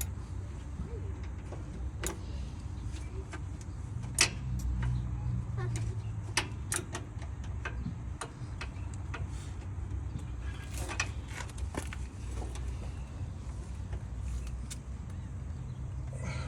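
Scattered clicks and knocks of hand tools and battery cable hardware, the loudest about four seconds in, over a steady low rumble.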